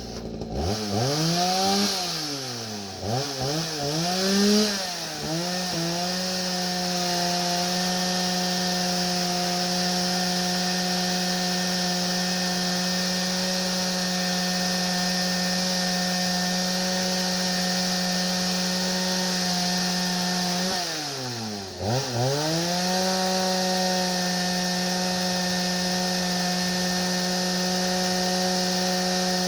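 Chainsaw on a homemade chainsaw mill, ripping a white oak log lengthwise. The engine revs rise and drop a few times at first, then it runs steadily under load. About twenty-two seconds in, the revs sag sharply and recover.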